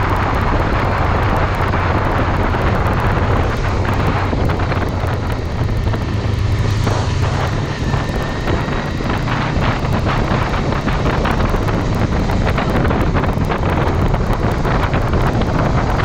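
Wind noise on the microphone over the steady low hum of a Honda CBR500R's 471 cc parallel-twin engine at road speed, the engine hum easing briefly around the middle.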